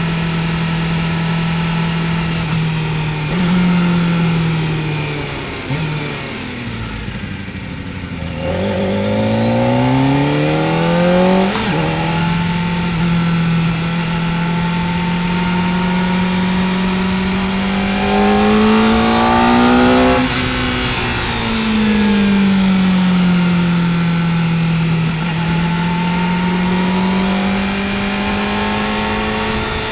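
Kawasaki Ninja ZX-4R's inline-four engine under way, its revs rising and falling with the road. The revs drop off about six seconds in, then climb in a rising wail that breaks off sharply at a gear change about twelve seconds in. They climb slowly again to a peak about twenty seconds in, ease off, and build once more near the end.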